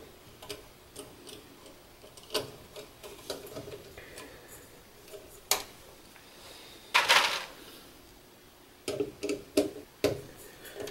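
Scattered small clicks and taps of hands working a red wire into a stepper driver's screw terminal, with a short scraping rustle about seven seconds in and a quick run of clicks near the end.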